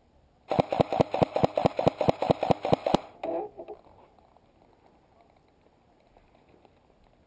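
Airsoft electric rifle firing a rapid string of about seventeen shots, around seven a second, for about two and a half seconds, then stopping.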